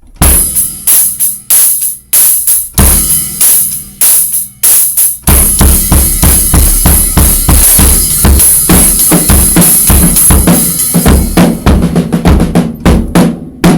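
Acoustic drum kit played loud, with kick drum, snare and cymbals. Separate hits and short fills for the first five seconds or so, then a busier steady beat under a wash of cymbals, ending on a final hit that rings on.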